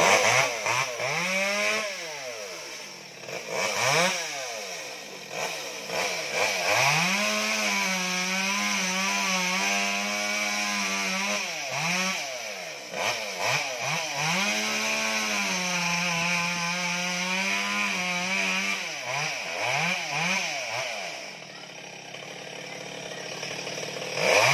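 Chainsaw started up, revving up and down a few times, then held at high speed for several seconds, twice, as it cuts into a coconut palm trunk just below the crown. It drops to a lower speed near the end and revs again.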